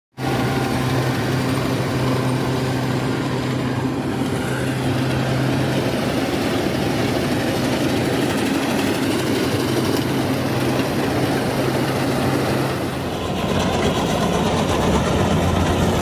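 Kubota combine harvester's diesel engine running with a steady hum. About 13 seconds in, the hum drops to a lower pitch and the sound dips briefly, then runs on a little louder.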